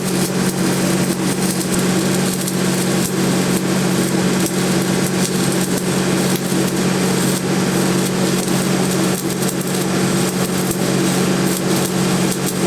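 A small engine running steadily at a constant speed, with a dense crackle over it.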